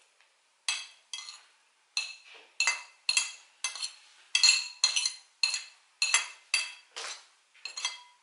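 A metal spoon scraping and tapping flaked tuna off a ceramic plate: a string of sharp, ringing clinks, irregular at about two a second.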